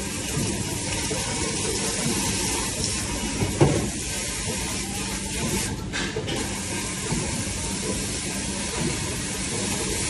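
Pre-rinse spray hose jetting water against the stainless-steel wall of a commercial dish machine's wash tank, a steady hissing spray as food debris is rinsed out. A single thump comes about three and a half seconds in, and the spray briefly lets up around six seconds in.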